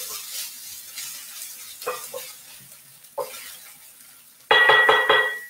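Onions, garlic and fresh bay leaves sizzling as they braise in a stainless steel frying pan, with a spoon scraping and tapping against the pan a few times as they are stirred. Near the end comes a brief, loud, ringing metallic clatter.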